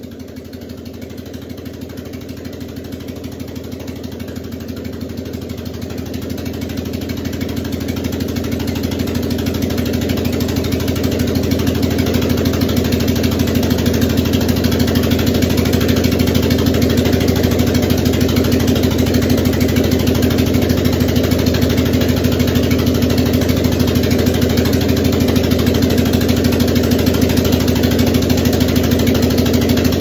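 Audi 2.0T four-cylinder engine running at a steady idle, growing louder over the first ten seconds or so and then holding even.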